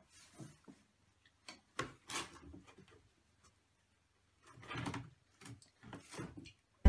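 Soft scuffling, rustling and light knocks from a cat and a puppy play-fighting on a fleece pet bed, in irregular short bursts with brief quiet gaps between them.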